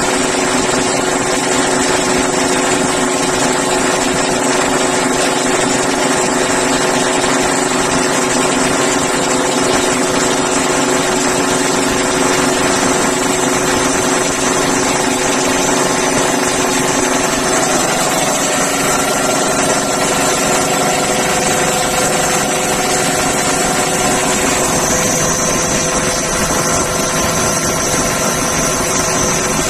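Breathing-air compressor running steadily while it charges an SCBA cylinder with compressed air. Its hum holds several steady tones that shift slightly about eighteen seconds in.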